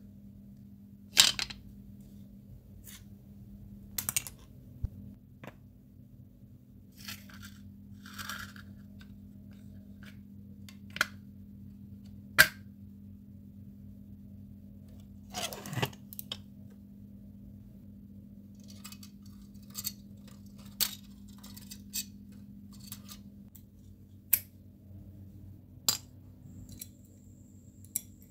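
Scattered sharp clicks and metallic clinks of small die-cast metal parts and tools being handled on a hard work surface as a model car is taken apart. The taps come irregularly, about a dozen of them, the loudest a little after a second in and about twelve seconds in, over a faint steady hum.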